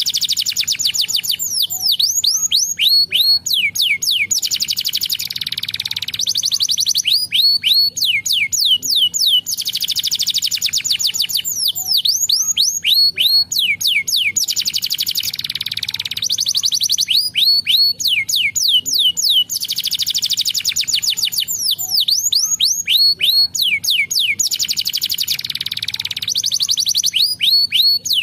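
Domestic canary singing: runs of quick, high downward-sweeping whistle notes alternate with fast rolling trills, the phrase pattern repeating every three to four seconds.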